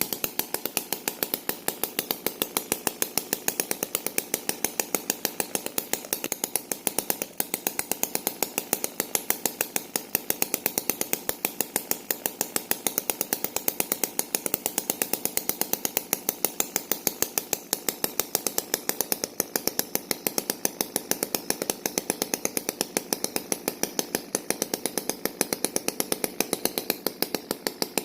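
Small engine running steadily, its firing pulses coming in an even beat of about four or five a second.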